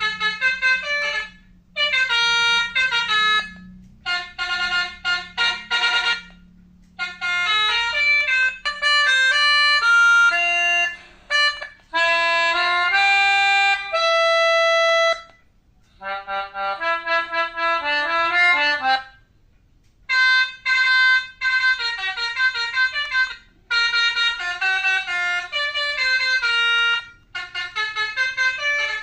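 Basuri multi-tone "telolet" bus horn playing quick melodic tunes of fast-changing notes, in bursts of one to four seconds separated by short pauses.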